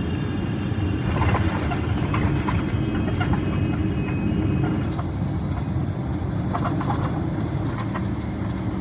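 Jet airliner noise: a steady, loud rumble with a faint high whine that stops about five seconds in. Short chirps come through over it now and then.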